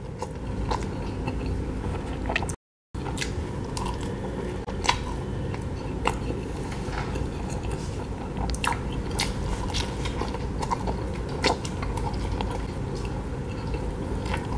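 Close-miked chewing and biting of a folded slice of stuffed-crust beef pepperoni pizza: irregular wet mouth clicks and smacks over a steady low background, with a brief cut to silence about two and a half seconds in.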